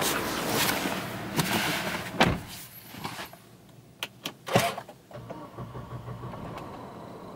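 A Mercedes-Benz E200's door shuts with a heavy thump about two seconds in, and the surrounding traffic noise drops away. A few sharp clicks and a knock follow, then a low steady hum as the car's dashboard electrics come on.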